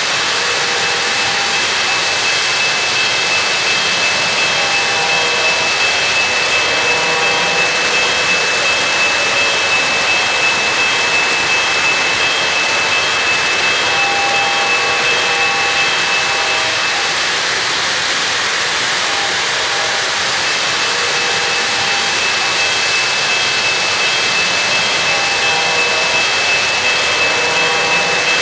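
O-gauge model trains running on three-rail track: a steady rumble of metal wheels on the rails with a constant high whine.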